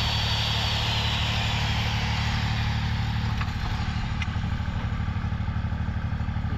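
An engine running steadily at idle. Over it, a high whine holds for a moment, then falls in pitch and fades away within the first two or three seconds.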